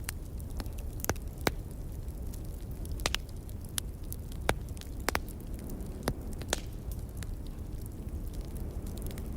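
Wood fire crackling, with about ten sharp, irregular pops over a steady low rumble of wind.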